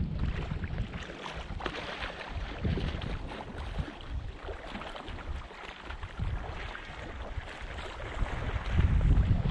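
Wind buffeting the microphone over water lapping and splashing at the surface, with a gusty rumble that swells near the end.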